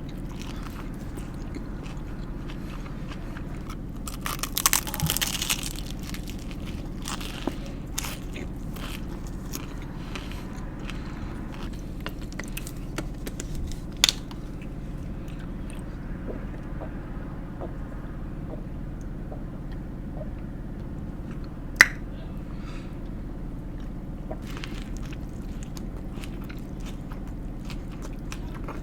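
Close-miked eating of a Subway sandwich: crunchy bites and chewing, over a steady low hum. A louder burst of crunching comes about five seconds in, and a single sharp click about two-thirds of the way through.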